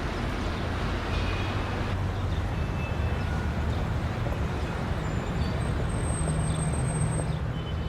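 Steady low rumble under an even hiss, with no distinct events; a few faint brief tones sit over it.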